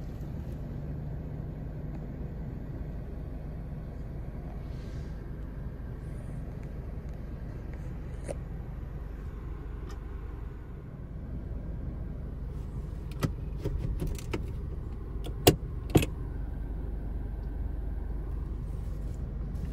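Suzuki Jimny JB74's 1.5-litre four-cylinder engine running, a steady low rumble heard inside the cabin. In the second half come a few sharp clicks, the loudest two close together near the end.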